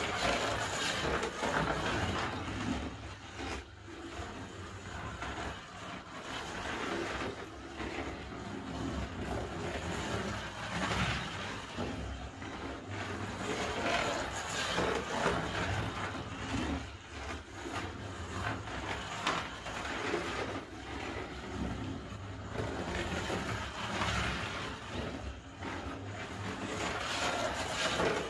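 Slot car lapping a large slot car track under hand-controller power, its small electric motor and pickup running along the plastic track, the sound swelling and fading as the car goes round.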